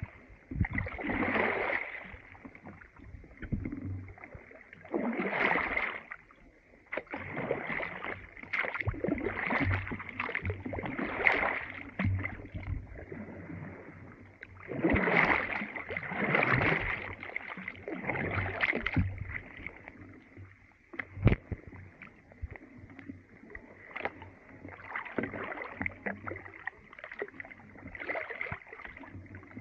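Kayak paddles dipping and pulling through slushy, ice-laden sea water in a series of swishing splashes, one every second or two, around a red tandem kayak. A single sharp knock about two-thirds of the way through is the loudest sound.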